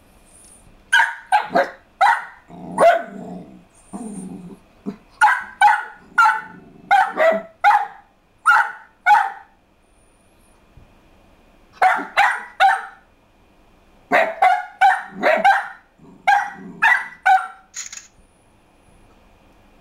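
A pet dog barking in rapid bursts of sharp barks, in several bouts with short pauses between, set off by the sound of the fireworks.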